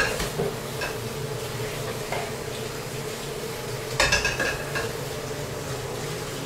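Metal kitchenware clinking, with light clicks early and a sharp metallic clatter that rings briefly about four seconds in, over a steady hum.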